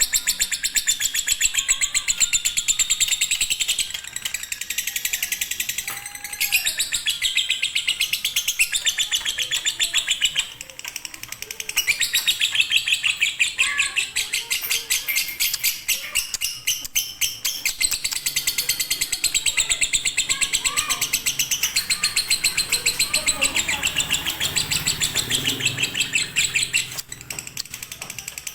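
Lovebird singing a long, rapid chattering trill, the drawn-out 'ngekek' song prized in konslet lovebirds, breaking off briefly a few times.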